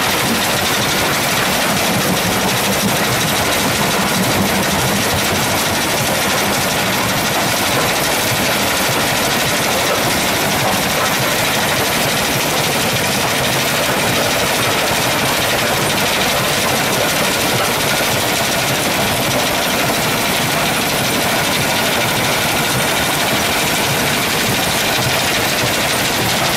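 Cassiterite sand separating plant machinery running: a loud, steady, unbroken mechanical din with a constant hiss, unchanging throughout.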